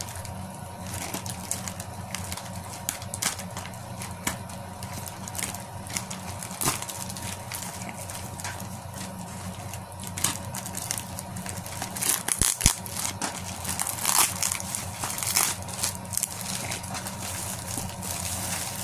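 Plastic poly mailer bag crinkling and rustling as it is worked open by hand, with scattered crackles that grow busier in the second half.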